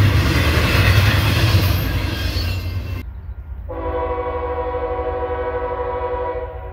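Double-stack intermodal freight train rolling past, a steady rumble of wheels and cars. After an abrupt cut, a locomotive air horn sounds one steady blast about three seconds long.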